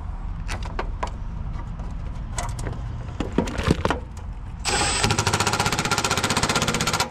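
Scattered clicks and knocks of tools and parts being handled. About four and a half seconds in, a cordless impact driver spins up with a brief whine, then hammers rapidly for about two and a half seconds before stopping abruptly near the end.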